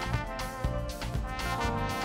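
Live band playing: a trombone holds notes over a drum kit played with sticks, with cymbals and a steady beat.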